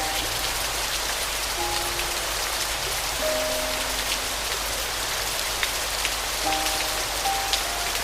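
Steady rain falling, a dense hiss with scattered drops ticking, under a few sparse, soft, held piano notes.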